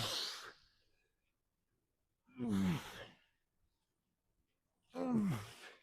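A man sighing out loud three times, about two and a half seconds apart, each sigh voiced and falling in pitch.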